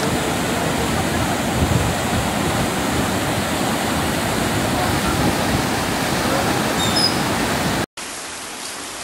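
Loud, steady rush of muddy floodwater pouring over a road. About eight seconds in it cuts off abruptly, and a quieter steady hiss of rain takes over.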